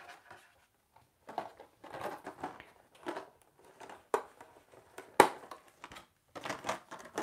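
Rummaging through art supplies: irregular rustling and crinkling with a few sharp clicks, the loudest click about five seconds in.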